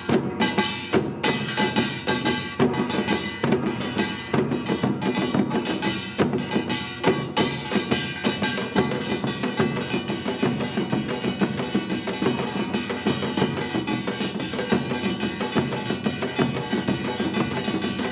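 Traditional Korean percussion ensemble playing a fast, dense rhythm of drum strokes, with ringing tones sustained over the beats. The strokes are sharply separated in the first few seconds, then run together into a thicker, continuous texture.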